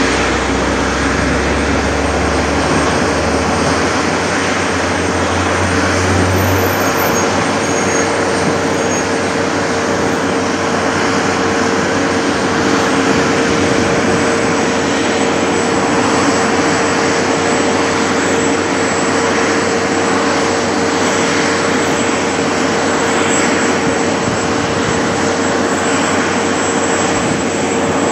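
Seismic vibrator trucks' engines running, a loud steady drone with a constant hum through it. A deep low rumble underneath cuts off about seven seconds in.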